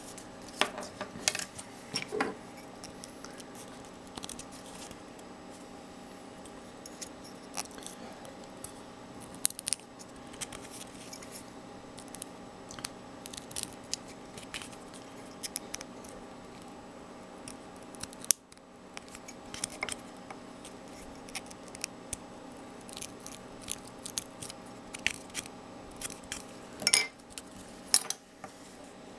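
Small 3D-printed plastic parts handled and fitted together: irregular sharp clicks and taps, with a loud cluster near the end, over a steady low hum.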